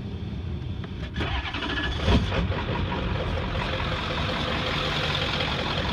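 Ford 7.3L Powerstroke V8 turbodiesel being started: it cranks, fires about two seconds in, then runs steadily.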